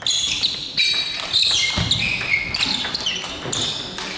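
Table tennis rally: the ball clicking off bats and table again and again, with rubber-soled shoes squeaking sharply on the hall floor, all echoing in a large sports hall.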